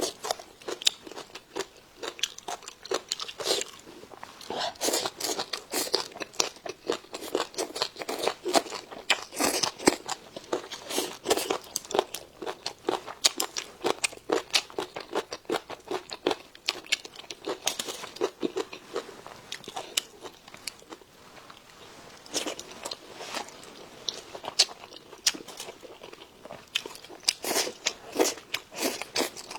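Close-miked chewing and crunching of food, with many crisp, irregular crunches in quick succession and a few short lulls.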